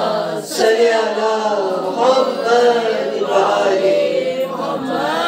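A woman's voice reciting in a drawn-out, sing-song delivery with long held, wavering notes.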